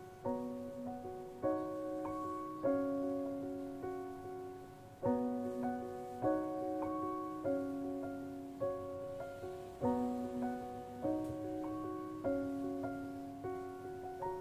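Background music: a slow, gentle piano piece, with chords struck about every second and a bit and left to ring out.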